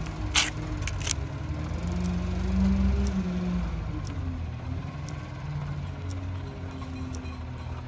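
Rear-loader garbage truck's engine running, swelling louder and higher about two to three seconds in, then settling back. Two sharp metallic clanks sound within the first second or so.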